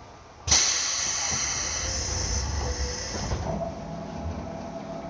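Sudden loud hiss of compressed air released from a JR 205 series electric train's air system. It starts about half a second in, holds for about three seconds, then eases off into a quieter steady hiss.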